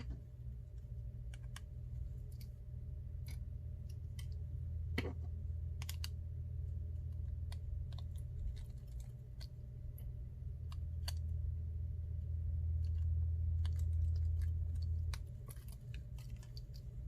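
Scattered light clicks and taps of small tools and phone parts being handled during an iPhone 6 Plus screen repair. Under them runs a low steady hum that swells and then drops off suddenly about fifteen seconds in.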